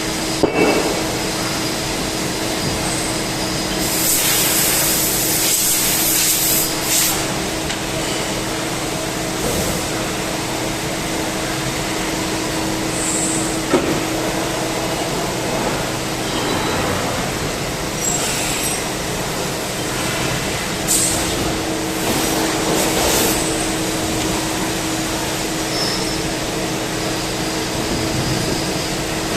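CNC lathe running with a steady hum and a constant tone. Short bursts of hissing come twice, and there are a couple of sharp knocks.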